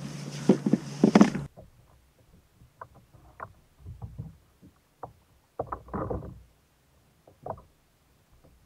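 Gear being handled on a plastic sit-on-top kayak: a steady rush with a few loud knocks for the first second and a half, cutting off abruptly, then scattered light knocks, clicks and rustles.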